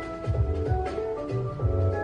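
Music with a bass line moving under held higher notes and light percussion.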